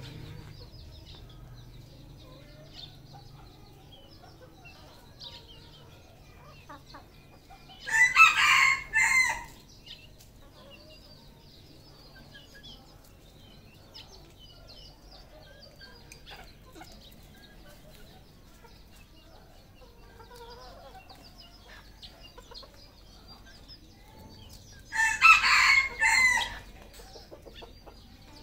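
Red junglefowl crowing twice: a short crow of about a second and a half about eight seconds in, and another near the end. Between the crows there is faint scattered clucking and chirping.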